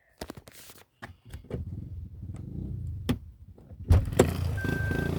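A car's electronic warning chime beeping about once a second over a steady low engine hum, after a loud clunk about four seconds in that makes the hum louder.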